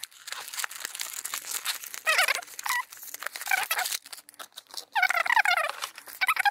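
Plastic candy wrapper crinkling and tearing as a gummy packet is opened, mostly in the first few seconds. Short high squeaky sounds come in about two seconds in and again in a longer run near the end.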